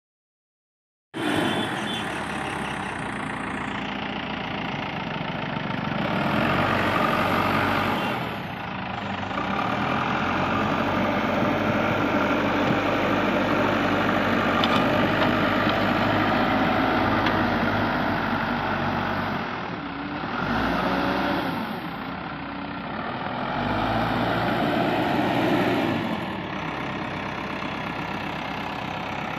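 Caterpillar 424B2 backhoe loader's diesel engine running as the front loader bucket pushes and lifts soil. It cuts in about a second in and swells and eases several times as the machine works harder and then backs off.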